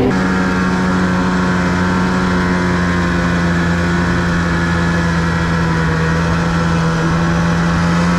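Snowmobile engine running at steady revs, holding one even pitch.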